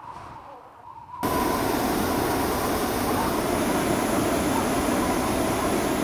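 Hot air balloon propane burner firing: a loud, steady roar that starts suddenly about a second in.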